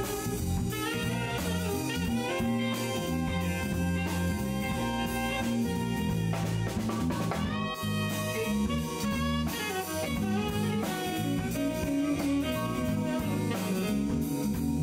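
Live jazz band playing: saxophone lead over drum kit, electric bass and keyboard, with a brief cymbal wash about halfway through.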